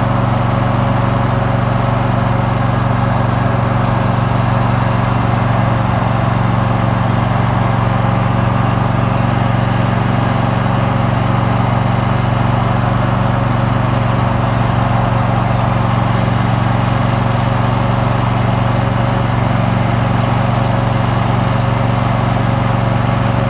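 Riding lawn mower's engine running steadily at a constant speed while driven along a road.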